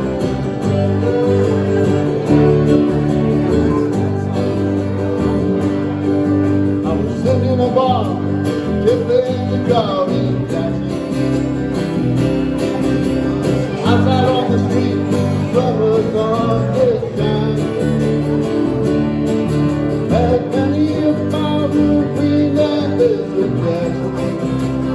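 Country band playing live: guitars over a steady bass line, with a higher lead line that slides up and down in pitch.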